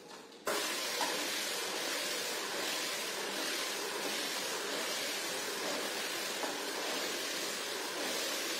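Rotary floor scrubber running, its spinning brush scrubbing a shampoo-foamed rug with a steady hissing wash of noise that starts abruptly about half a second in.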